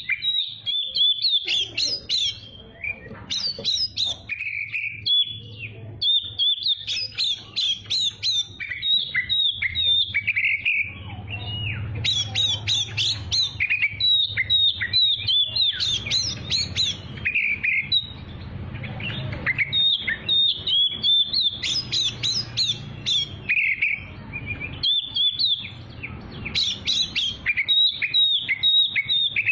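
Oriental magpie-robin (kacer) singing a continuous, rapid song of varied chirps, trills and whistled phrases with only brief breaks, over a faint low hum.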